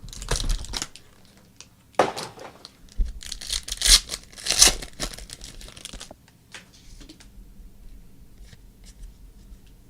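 A trading-card pack's wrapper being torn open and crinkled: a short rustle at the start, then a longer run of tearing and crinkling bursts from about two to six seconds in, after which only faint ticks remain.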